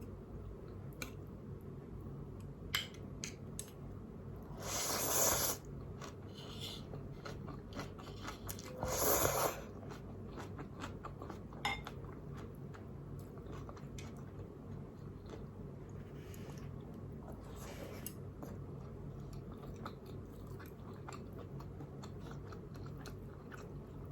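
Close-miked eating of spicy instant noodles: soft chewing and small mouth clicks, with two louder, second-long noisy bursts about 5 and 9 seconds in.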